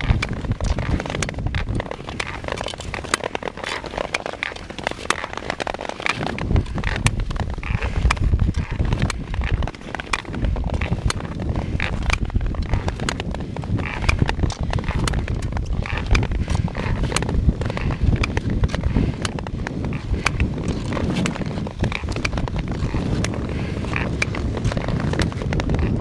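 Speed skates' long blades scraping on natural river ice, with frequent sharp clicks scattered through it and a low wind rumble on the microphone from the moving camera.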